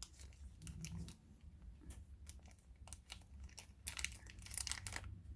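Faint scattered clicks and crinkles of a strand of agate beads and its packaging being handled, busier about four seconds in.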